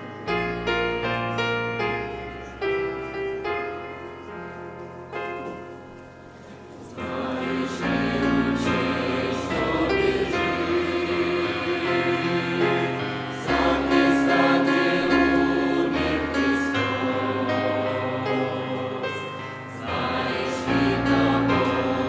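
A Russian Christian hymn: a piano plays a short introduction, then about seven seconds in a choir comes in singing with piano accompaniment.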